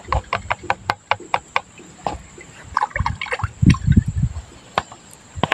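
Water poured into a plastic bottle to fill it, trickling and splashing, with a quick run of plastic clicks and knocks early on as the bottle is handled and a heavier splashy pour about three to four seconds in.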